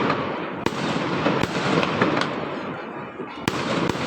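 Fireworks and firecrackers going off all around: a dense, continuous crackle of many small explosions, with several sharper single bangs, the loudest about three and a half seconds in.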